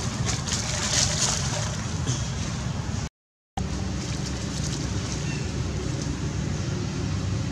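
Steady outdoor background noise, a low rumble with a hiss over it, broken by a short dropout to silence about three seconds in.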